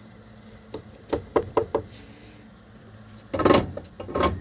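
Rammer being set into a short smoke-bomb tube in the pressing tooling over a clay charge: a few light knocks, then a louder clunk a little over three seconds in.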